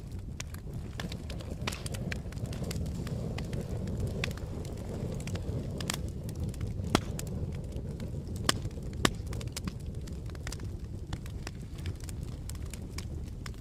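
Campfire burning: a steady low rumble of flames with frequent sharp crackles and pops of burning wood, a few louder snaps around the middle.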